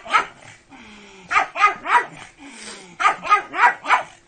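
Pug barking in short, high, excited yaps: one bark, then a run of three, then a run of four.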